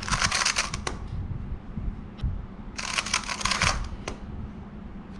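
MoYu WeiPo V5 AI smart 2x2 cube being turned for a scramble: two quick runs of plastic clicking and clacking about a second long each, one at the start and one around three seconds in.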